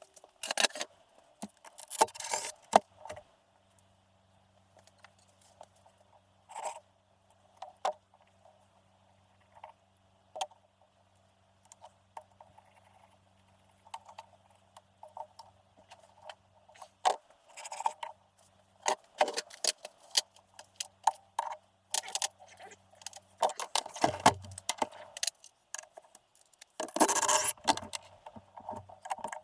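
Wrenches and metal engine parts clinking and clattering during an engine teardown: scattered sharp metallic clicks and scrapes, busier near the end, over a faint steady hum.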